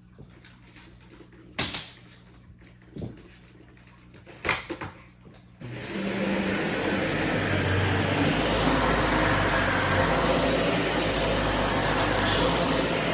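A few scattered knocks and clicks, then a little past halfway a vacuum cleaner switches on and runs with a steady motor noise.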